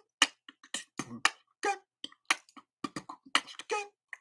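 Music: a sparse beat of short, irregular percussive hits mixed with clipped vocal sounds.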